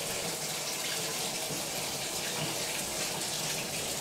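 Water running steadily into a bathtub.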